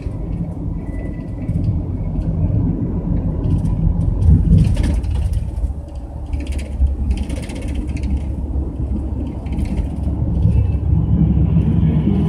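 Coach bus moving along the road, heard from inside the cabin: a steady low engine and road rumble with short bursts of higher noise.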